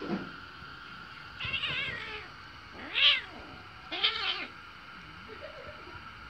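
Kittens play-fighting, one mewing three times in short high, wavering cries, the middle one loudest.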